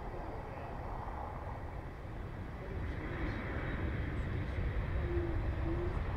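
Swiss Airbus A220's Pratt & Whitney geared turbofan engines and the airliner's low rumble on its landing rollout along the runway, growing louder about three seconds in as it comes nearer.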